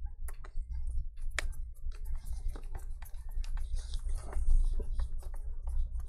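Irregular small clicks and ticks of a precision screwdriver driving the screws that hold a MacBook Air motherboard into its aluminium case, over a steady low hum.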